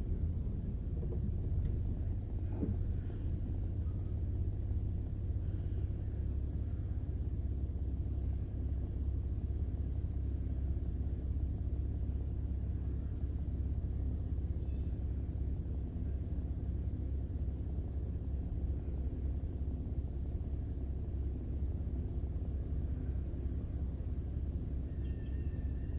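Steady low rumble of a car driving along: engine and road noise.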